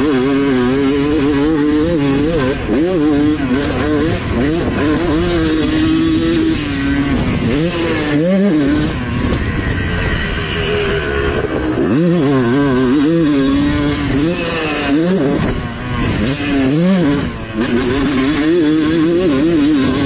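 Yamaha YZ two-stroke motocross bike engine heard from on board, ridden at full throttle: the revs climb and drop again and again through gear changes, with deeper off-throttle dips about eight, twelve and seventeen seconds in.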